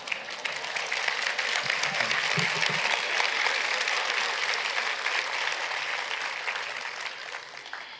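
Audience applauding, swelling in the first second and fading out near the end.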